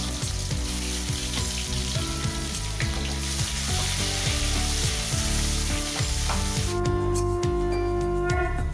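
Chopped onion frying in hot oil in a kadai, a steady sizzle with clicks and scrapes of stirring. The sizzle cuts off abruptly about two seconds before the end, leaving a few steady musical notes.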